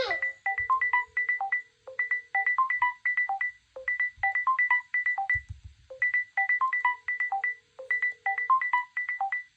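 Smartphone ringtone for an incoming call: a quick electronic melody of short, high, bell-like notes, the phrase repeating about every two seconds.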